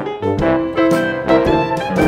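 Instrumental background music with a regular beat and changing pitched notes.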